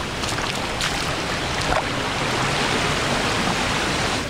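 Waterfall water rushing: a steady, dense hiss with occasional small splashes.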